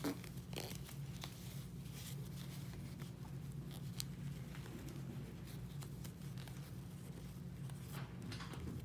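Faint rustling and scattered small clicks of hands handling doll-making materials close to the microphone, the sharpest click right at the start, over a steady low hum.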